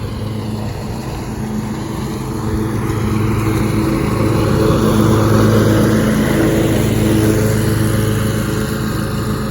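Scag Tiger Cat II zero-turn mower engine running steadily with its deck blades chopping up tree-trimming debris; the sound grows louder toward the middle, then eases off.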